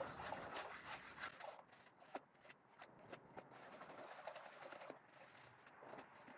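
Faint irregular clicking and ticking of gravel and small stones shifting against a gold pan as it is worked.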